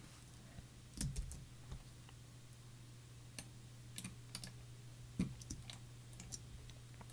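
Computer keyboard and mouse clicks, sparse and irregular, over a faint steady low hum.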